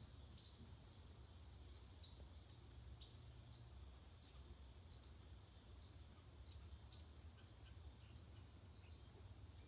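Faint insect chorus, typical of crickets: a steady high drone with short high chirps repeating a little more than once a second, over a low rumble.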